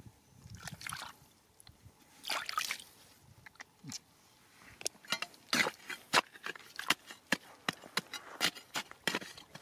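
Water trickling and splashing as hands work in a shallow muddy pool. From about five seconds in, a quick, irregular run of sharp clicks and scrapes as a metal bar digs into wet rock and mud.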